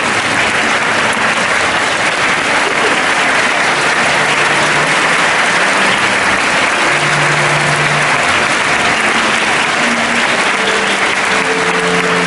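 A large audience applauding, steady and unbroken clapping.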